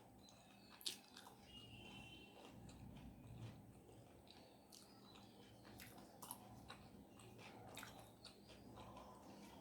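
Faint close-up chewing of a mouthful of rice and curry, with wet mouth clicks and smacks scattered throughout and one sharper click about a second in.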